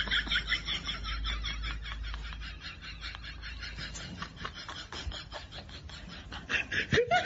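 Rapid, rhythmic high-pitched chirping, pulsing several times a second, with a low hum under it for the first couple of seconds.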